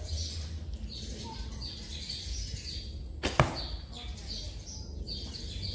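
An arrow shot from a hand-drawn bow: the bowstring is released with one sharp snap a little past three seconds in. Birds chirp repeatedly in the background.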